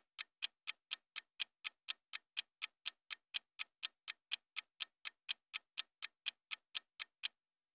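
Clock-like ticking sound effect of a quiz countdown timer, evenly paced at about four ticks a second, stopping shortly before the end.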